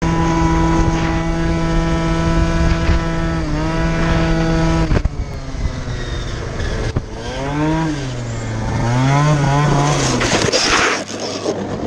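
Scooter engine running at a steady drone for several seconds, then rising and falling in pitch as the throttle is opened and closed into a sharp bend. Near the end a burst of harsh scraping noise as the scooter slides out and goes down.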